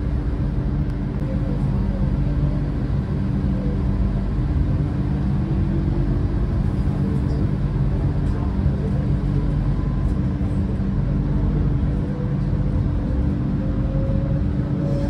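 Electric tram or train running, a steady low rumble and hum, with a motor whine rising slowly in pitch through the second half.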